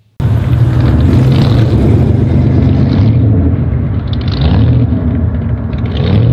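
Loud motor-vehicle engine rumbling, its level swelling and easing about every second and a half as if revved. It cuts in suddenly just after the start.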